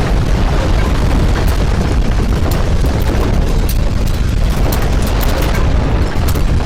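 Loud, steady deep rumble with scattered crackles and rattles: simulated earthquake ground-shaking sound.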